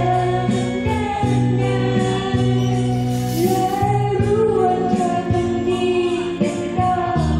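Amateur singers singing into handheld microphones over loud amplified backing music, with a steady bass line and a regular beat.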